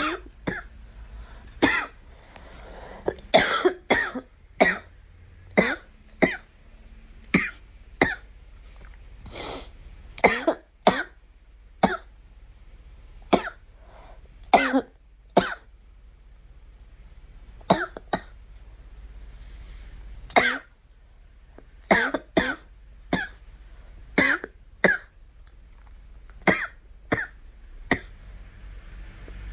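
A girl coughing again and again in short single coughs, about one or two a second, with a brief break about halfway through.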